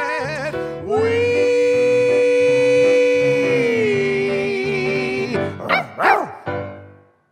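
A man and a woman singing the last held note of a show tune in two-part harmony, with grand piano underneath; the note steps down partway through. Three quick bark-like yelps follow near the end before the sound dies away.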